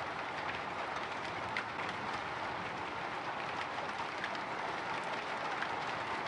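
Light drizzle pattering on a windowpane: a steady hiss of rain with scattered small drop ticks.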